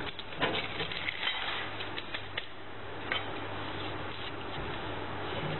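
A few light clicks and taps of small hard objects being handled, mostly in the first couple of seconds, over a steady low hum and background hiss.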